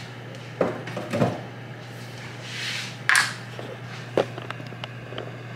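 A few scattered knocks and bumps of kitchen handling, a ladle and pot being moved about with the camera, over a steady low hum.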